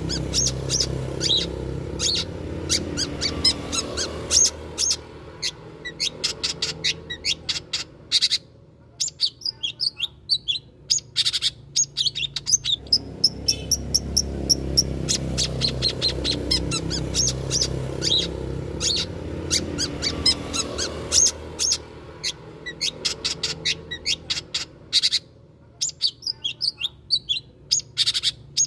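Long-tailed shrike (cendet) calling in quick runs of short, sharp, high chips and chatters, played as a lure recording. The sequence repeats about halfway through, over a steady low rumble.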